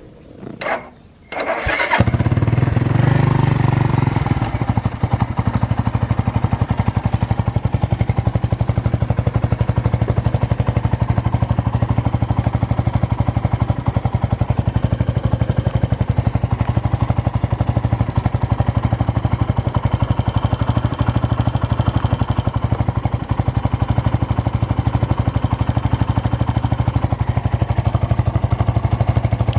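Suzuki Grasstracker's single-cylinder engine starting up about a second and a half in, running a little faster for a couple of seconds, then settling to a steady idle through a SuperTrapp 4-inch full exhaust. The seller describes it as free of abnormal noises.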